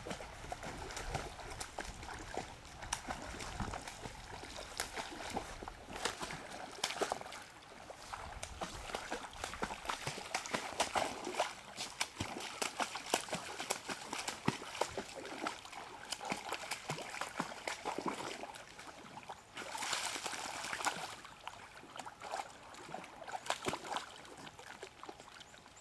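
A dog wading in shallow lake water, splashing and sloshing with its legs and muzzle: irregular splashes and drips over running water, with a louder stretch of splashing about twenty seconds in.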